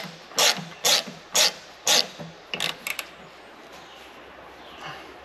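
Hand ratchet wrench tightening a nylock nut, giving a short rasp of ratchet clicks on each back-stroke, about two a second. A few sharp clicks follow around three seconds in, and then the work stops.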